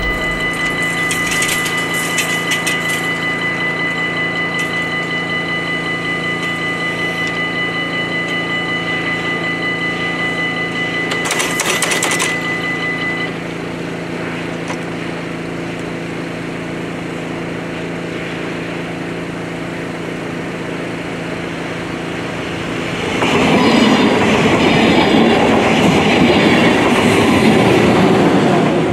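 Level-crossing warning bells ringing steadily while the barriers are down; the ringing thins out about thirteen seconds in, with a brief loud hiss just before. About twenty-three seconds in, a passenger train rushes over the crossing, the loudest part.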